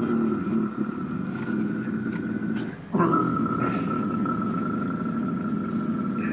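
A man's deep guttural growl vocals in extreme-metal style: two long, rough, sustained growls with a short break about three seconds in.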